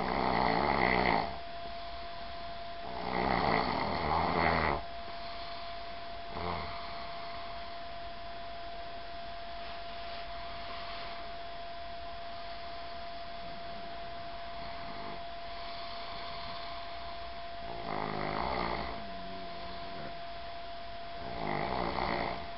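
A person snoring in their sleep: four loud snores at irregular intervals, two close together at the start and two near the end, with a long gap between them. A steady faint hum runs underneath.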